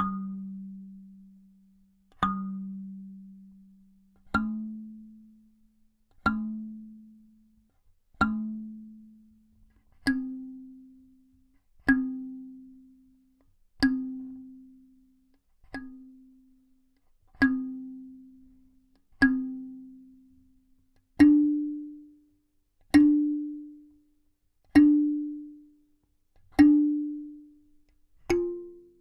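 Kalimba (thumb piano) tines plucked one at a time, a single note about every two seconds, each ringing out and fading. The notes step gradually upward in pitch, with some notes played two or three times before moving to the next higher tine.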